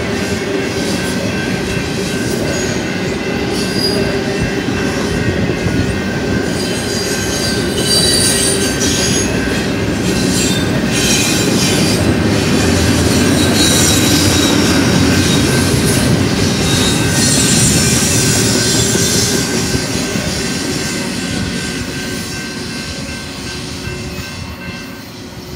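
Union Pacific freight train's double-stack container cars rolling past, wheels clattering and rumbling on the rails with stretches of high wheel squeal. The noise dies down near the end as the last cars go by.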